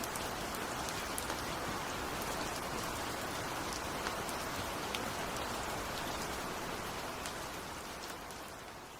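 Steady rain falling, with fine scattered drop patter, fading out near the end.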